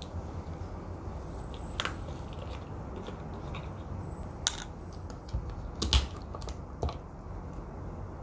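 Ice cubes cracking and settling in a glass jug: a few scattered sharp cracks and clicks, the loudest about six seconds in, over a low steady hum.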